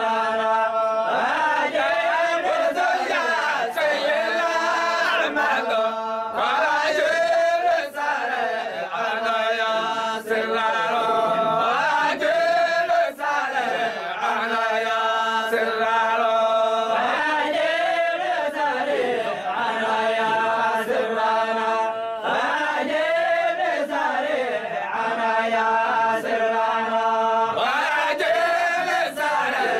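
Group of men chanting a Sufi dhikr together, in long held phrases that glide up and down and repeat every few seconds.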